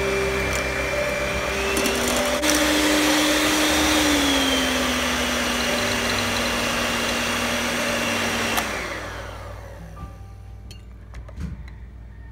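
Oster electric hand mixer running steadily, its beaters whipping egg whites to stiff peaks in a glass bowl, with a step in motor pitch about two seconds in. It is switched off about nine seconds in and winds down, followed by a few faint clicks.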